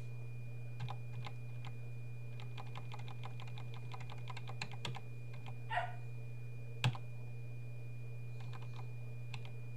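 Computer keyboard key pressed over and over in a fast, even run for about four seconds, deleting characters in a text editor, then a few scattered taps, one of them a sharper click near the seven-second mark. A steady low electrical hum and a faint high-pitched tone run underneath.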